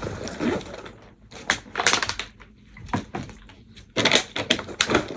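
Things being handled and packed into a bag: a series of sharp clicks and knocks, several close together about two seconds in and again near the end, with light rustling between.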